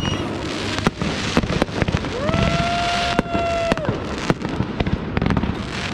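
Fireworks and firecrackers going off in a rapid, irregular string of sharp cracks and bangs. In the middle, a whistling tone rises briefly, holds steady for about a second and a half, then drops away.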